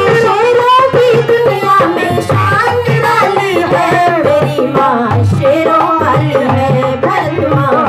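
A woman singing a Hindi devotional-patriotic song into a microphone, with tabla drumming keeping a steady rhythm underneath.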